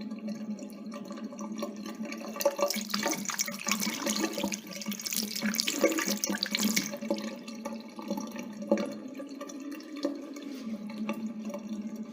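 Water running from a tap and splashing, with a steady rushing sound. From about two and a half seconds in to about seven seconds it is louder and more hissy, then it settles back to the earlier level.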